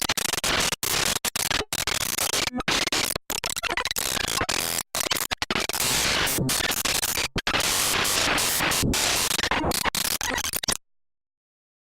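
Harsh, static-like noise soundtrack, dense hiss and crackle chopped by many brief dropouts, cutting off abruptly near the end into silence.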